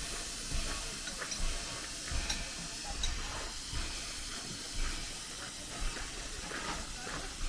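Steam locomotive hissing steadily as steam escapes while it stands, with irregular low bumps underneath.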